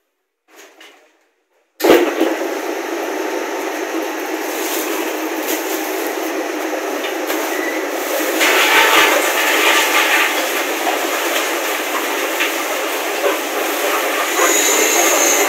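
Coconut oil mill machinery running loudly and steadily, starting suddenly about two seconds in.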